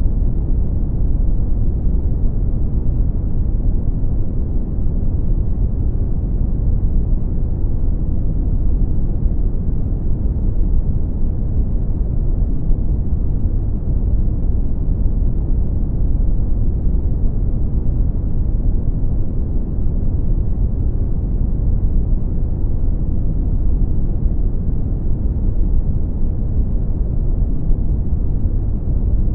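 Brown noise: a steady, deep rumbling hiss, loudest in the bass and falling away toward the treble, unchanging throughout.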